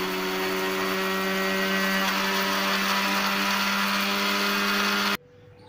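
Electric kitchen mixer-grinder running at speed, grinding dried tea leaves in its stainless steel jar: a steady motor hum over a wide hiss, switched off abruptly about five seconds in.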